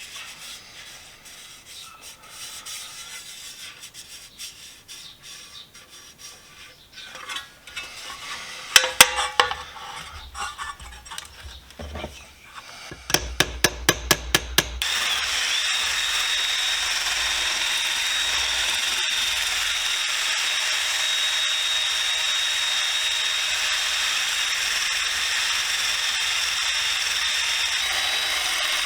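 Hand rubbing or filing on sheet metal, then a quick run of sharp taps. About halfway through, a small high-speed power tool starts up and runs steadily with a high whine, stripping paint from the steel tool box.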